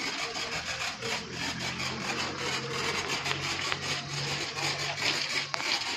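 High-pressure washer spraying, a dense fluttering hiss, with the washer's motor humming steadily from about a second in until just before the end.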